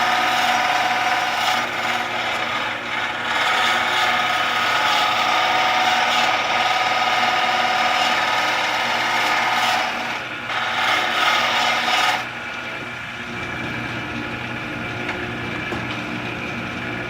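Wood lathe running, with a tool working the spinning wood in a steady loud hiss over the motor's hum. About twelve seconds in the cutting stops suddenly and the lathe keeps running on its own, quieter.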